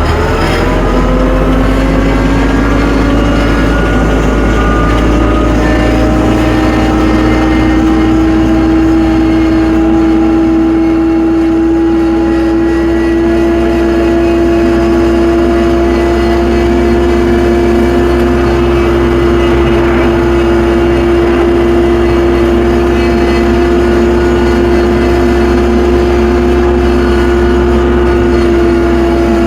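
Tractor running steadily while driving, its engine and drive giving a strong steady whine that climbs in pitch over the first couple of seconds and then holds level over a low rumble.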